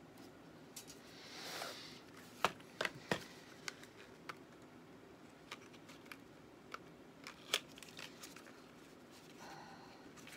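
Light hand-handling noise at a tube guitar amp's open back: a soft rustle, then scattered faint clicks and taps as the tubes and chassis are handled.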